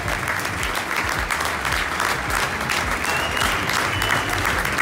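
A crowd of football fans clapping in a stadium stand: dense, steady applause of many hands together.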